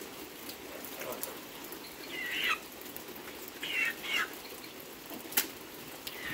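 A bird calling in short, curving chirps, about four times, over a steady hiss of light rain, with one sharp click about five seconds in.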